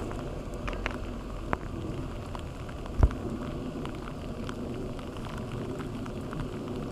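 Steady rain falling on water, an even hiss with scattered sharp drop ticks. A single dull thump stands out about three seconds in.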